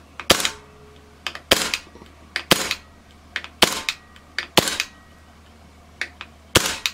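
Hatsan Blitz .22 PCP air rifle with a DonnyFL Emperor silencer firing single shots in semi-auto: six in all, about a second apart, with a longer pause before the last. A lighter click comes just before most shots, and the action cycles cleanly each time.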